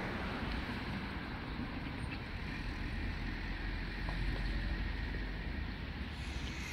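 Steady outdoor street ambience: a low rumble with a hiss over it, like distant road traffic.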